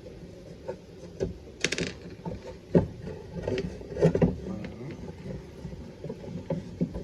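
Screwdriver and hand handling on a small tube radio's cabinet as its screws are taken out: scattered clicks and knocks, with a brief scrape about two seconds in.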